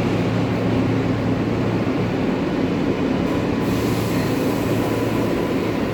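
New York City Subway R143 car with a steady rumble and low motor hum. About halfway through, a high hiss joins it.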